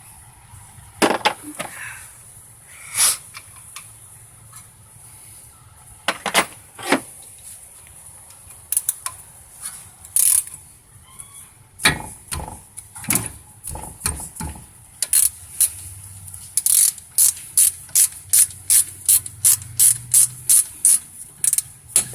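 Socket ratchet wrench clicking as it works a brake caliper bolt loose: scattered clicks at first, then a steady run of about two to three clicks a second over the last several seconds.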